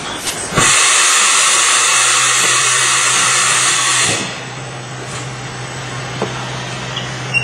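Dry offset cup printing machine running with a steady low hum. About half a second in, a loud hiss starts suddenly, holds even, and cuts off sharply about three and a half seconds later.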